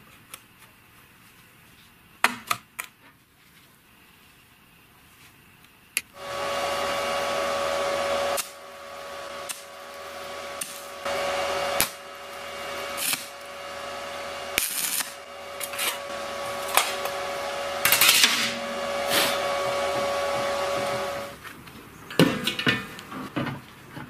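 A few clicks and knocks, then an electric motor starts about six seconds in and runs with a steady whine, its load shifting a little, with short bursts of hissing noise over it. It stops a few seconds before the end, followed by more clicks.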